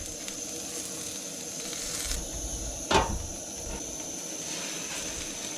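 A quesadilla frying with a steady sizzling hiss, and a single sharp knock about three seconds in.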